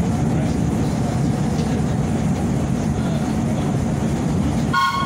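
Vintage AB Standard subway train running along the tracks, heard from inside the car as a steady low rumble. Near the end a train horn sounds two short blasts.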